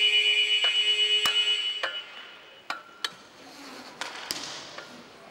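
Arena buzzer sounding a loud, steady, high-pitched tone that cuts off about two seconds in, followed by a few sharp knocks.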